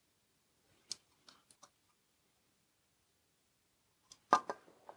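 Mostly quiet, with a few faint light clicks of a small circuit board being handled between the fingers, then a louder short clatter about four seconds in.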